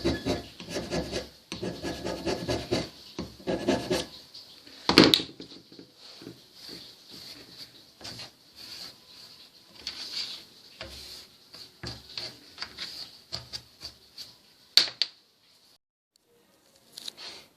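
Hand scraper cutting the cast-iron guideway of a milling machine, to true the ways' geometry. Quick repeated strokes, several a second, fill the first four seconds. Scattered scrapes follow, with a sharp loud stroke about five seconds in and another near fifteen seconds.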